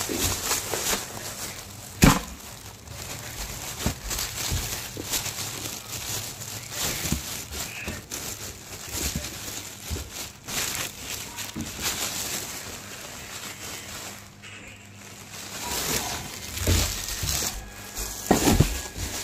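Plastic bag around a sneaker crinkling and rustling as it is handled close to the microphone, with a couple of sharp crackles near the start and a quieter moment about three-quarters of the way through.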